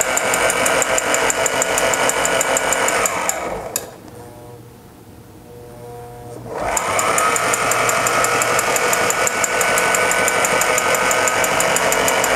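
Sailrite LSZ-1 Ultrafeed portable walking-foot sewing machine stitching a seam through four layers of medium-weight upholstery fabric: a steady motor whine with rapid needle ticking. It stops about three seconds in, then starts again a few seconds later, its whine rising as it comes up to speed.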